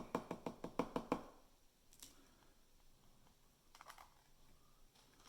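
Capped Fountain Pen Revolution Darjeeling fountain pen being tapped lightly in a quick even run, about six taps a second, which stops about a second in, followed by a couple of faint clicks. The tapping sends the ink from the eyedroppered barrel into the section and feed.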